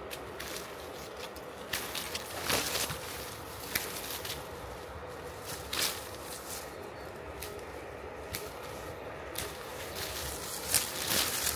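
Hand pruning shears cutting satsuma mandarin branches: several sharp snips at an irregular pace, the loudest about two and a half seconds in.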